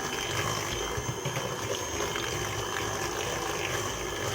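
Electric hand mixer running steadily, beating the cookie batter.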